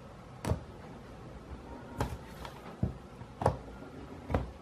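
Hollow plastic toy egg knocking and clacking against a hard tabletop: five short, sharp knocks at uneven intervals.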